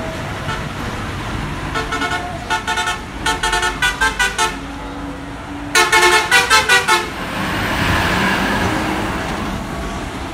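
Private bus horn sounding in runs of rapid short honks, several runs between about two and four and a half seconds in and a louder run of about eight quick honks around six seconds in. The bus's engine and tyre noise then swells as it passes close.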